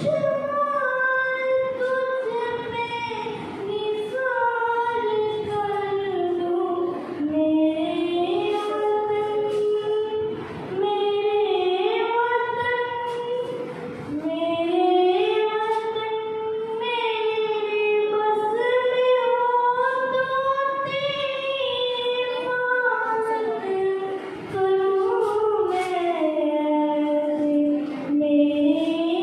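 A girl singing solo into a microphone: a slow melody of long held notes that glide up and down, with no instruments heard.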